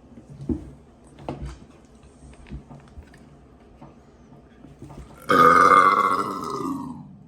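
A man's long, loud burp lasting about two seconds, starting about five seconds in, its pitch slowly sinking as it trails off. A few faint clicks come before it.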